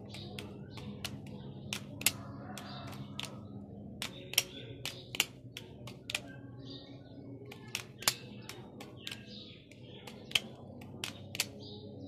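Butterfly knife (balisong) being flipped: irregular sharp metal clicks and clacks as the handles and tanto blade swing round and strike each other, a few of them much louder.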